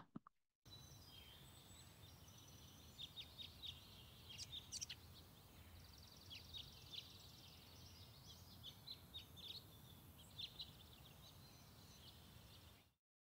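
Faint birdsong: many short chirps and quick trills over a low steady rumble, which cuts off suddenly near the end.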